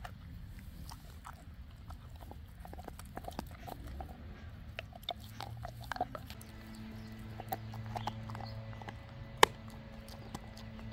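Dog eating raw lamb shank and ground beef: wet chewing and smacking, many irregular short clicks, with one loud sharp crack about nine and a half seconds in.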